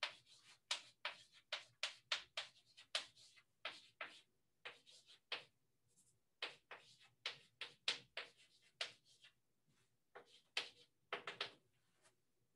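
Chalk writing on a blackboard: a run of short, scratchy strokes and taps, about two or three a second, with brief pauses about six seconds in and again around ten seconds in.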